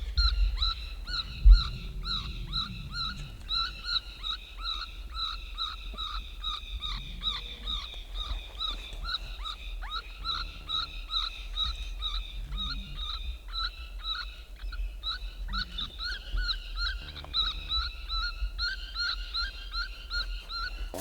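Electronic predator call playing a quick, even series of high squealing distress cries, about two to three a second, used to lure in a coyote. The cries cut off suddenly at the end. A low rumble runs underneath, with one loud thump about a second and a half in.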